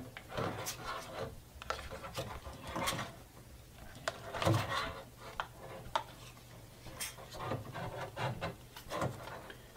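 Plastic stuffer working ground venison down through a funnel into a Cabela's jerky gun tube: irregular rubbing scrapes with scattered sharp plastic clicks and knocks, the loudest about halfway through.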